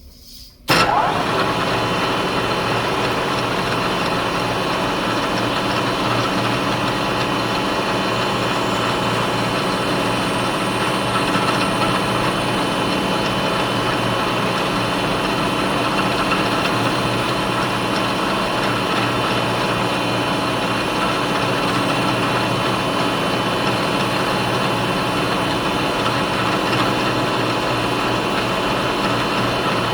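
Milling machine spindle starting abruptly about a second in and then running steadily with a constant whine, as a 1/16-inch end mill cuts polycarbonate sheet.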